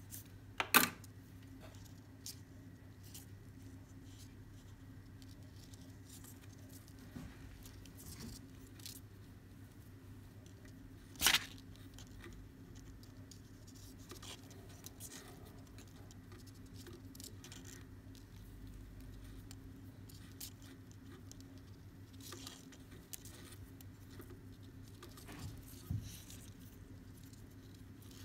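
Hands working macrame cord while tying knots: soft rustles and small scratchy ticks, with a few sharp clicks, the loudest about a second in and again about eleven seconds in. A steady low hum runs underneath.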